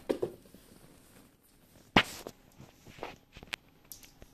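A sharp thump about two seconds in, with several lighter knocks and taps before and after it.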